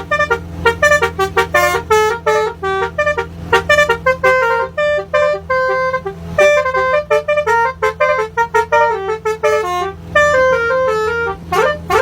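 Basuri telolet horn playing a fast melody of short, clipped notes stepping up and down, over a steady low hum.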